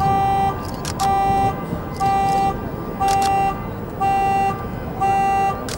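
Car alarm horn beeping in a steady on-off pattern, about one half-second beep each second, with a few short sharp clicks.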